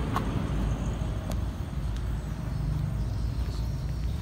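Steady low rumble of vehicle traffic by the roadside, with a couple of faint clicks in the first second and a half.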